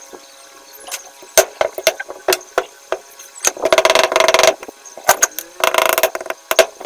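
Rubber mallet tapping a shaft oil seal into its bore in a Yamaha 125ZR's aluminium crankcase half. The knocks are sharp, scattered at first, then come in quick strings of rapid taps about halfway through and again near the end as the seal is driven home.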